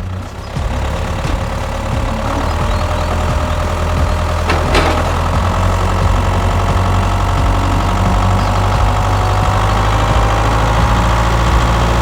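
Vehicle engine running steadily with a deep hum and a faint whine that slowly rises in pitch; a single sharp click cuts in near the middle.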